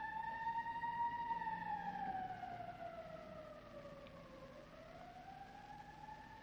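A faint siren wailing: its pitch climbs and holds, sinks slowly toward the middle, then climbs again near the end.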